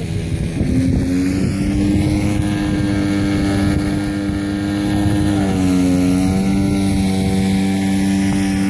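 Twin electric motors and propellers of a radio-controlled model aircraft droning in flight, two steady tones at slightly different pitches. The higher one rises a second in, then dips briefly about halfway through before coming back up.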